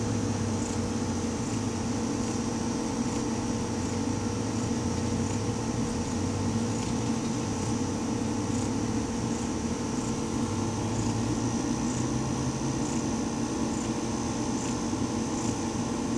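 A steady machine hum with a few fixed low tones, unchanging throughout, with faint regular ticking high above it.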